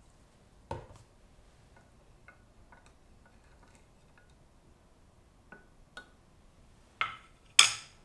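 Wooden spoon stirring sauce in a glass measuring cup: scattered light clinks and ticks against the glass, then two louder knocks that ring near the end.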